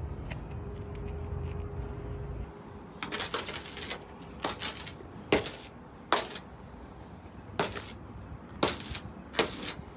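A low rumble that stops about two and a half seconds in, then a series of about seven short, sharp sounds at irregular intervals, over a faint steady hum.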